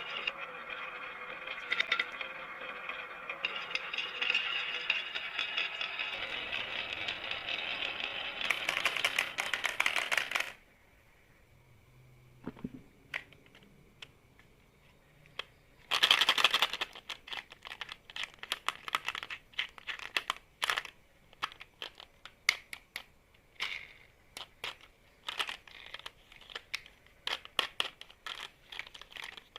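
Marbles rolling and clattering down a HABA marble run: a dense, continuous rattle that stops suddenly about ten seconds in. After a short lull there is a loud clatter, then a long run of separate sharp clicks and clacks as marbles drop and knock along the track.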